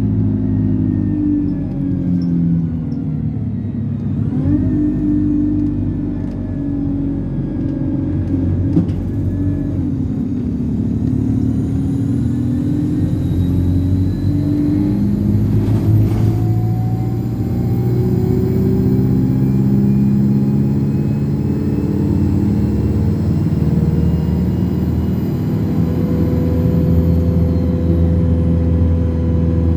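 Alexander Dennis Enviro200 bus's diesel engine pulling under load, with a loud turbocharger whistle. The whistle dips briefly a few seconds in, then climbs steadily to a very high pitch and holds there over the engine's low drone, falling away near the end.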